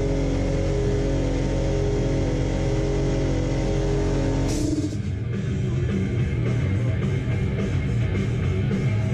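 Rock music playing on the radio. A held, sustained passage changes abruptly about four and a half seconds in to a different section with a driving guitar-and-drums beat.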